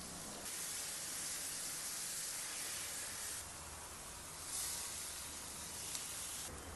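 Food frying in hot fat, a steady sizzle that swells louder for about three seconds near the start and again for about two seconds later on.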